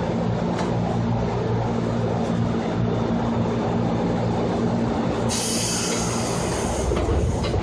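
Inside a JR 205 series electric train: a steady low hum with a noisy rumble. About five seconds in, a hiss of air starts suddenly and fades out near the end.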